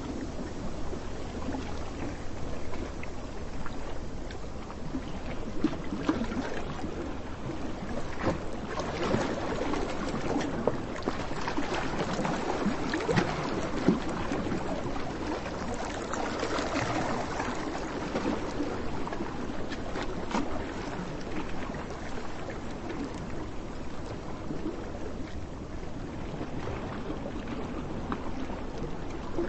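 Waves washing on a beach with wind, a steady crackling wash that swells through the middle and eases again.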